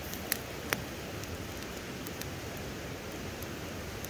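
Steady rushing noise of river water with a few sharp crackling pops from the cooking fire, two of them loudest early on, about half a second apart.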